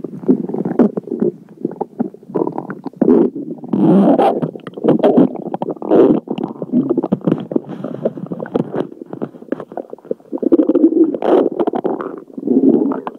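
Stomach and intestines gurgling and rumbling in loud, irregular bursts with many short crackles, as swallowed air and food churn through the gut.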